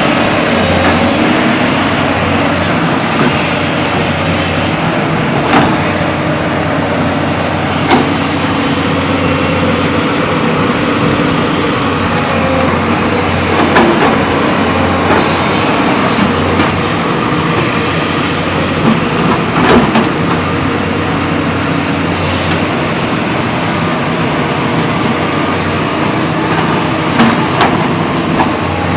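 A JCB excavator's diesel engine running steadily while it digs, with a few short sharp knocks now and then.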